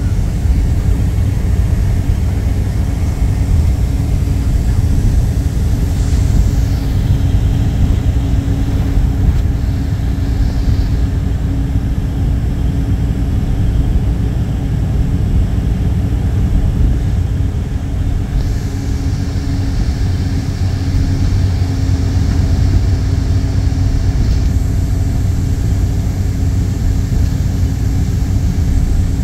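Steady low rumble of a moving train heard from inside the carriage, with a constant hum running under it.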